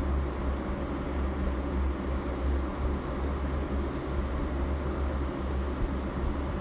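Steady low hum with a rumbling noise, unchanging throughout.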